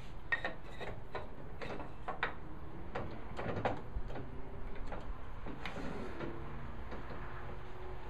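Scattered clicks, knocks and light scrapes as a wooden workpiece is turned around and repositioned in a table saw tenon jig before the next cut.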